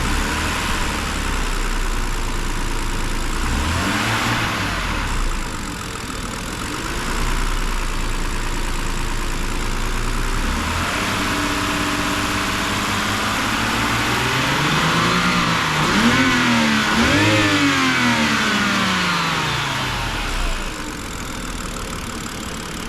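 BMW engine running with its cover off and being revved: one short blip, then a slow climb in revs, two sharp blips, and back down to idle. The revving is a check on a dull ticking knock, which the mechanics put down to a wobbling crankshaft pulley.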